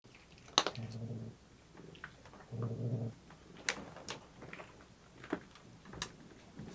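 Two short, low cat calls, about a second and about three seconds in, among scattered sharp clicks and taps from cats moving on the cat tower and hammock.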